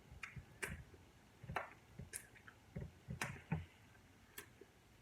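Faint, scattered wet clicks and smacks of someone chewing with the mouth close to the microphone, about eight short sounds spread irregularly.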